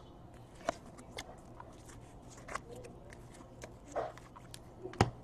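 Trading cards being flipped through by hand: soft rustles and scattered light clicks of card stock, with a sharper click about five seconds in.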